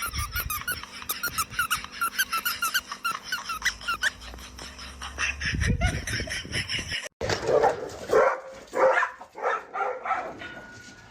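Rapid, high squeaks repeating about four times a second, then, after a sudden cut, a dog giving a few short barks and yelps.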